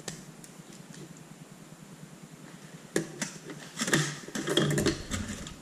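Kitchen handling noises: a single snip of scissors at the start, quiet for about three seconds, then a sharp knock and a second or so of knocking and rustling as things are set down and moved on the counter.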